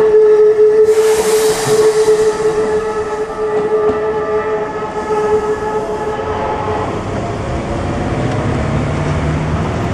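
Railway level-crossing warning bell ringing steadily while a Keikyu train passes through the crossing. The bell fades out about seven seconds in, and a low rumble of road traffic engines builds up as the crossing clears.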